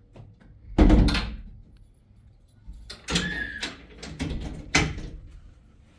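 A metal-framed door banging shut about a second in, followed by a few smaller knocks and rattles.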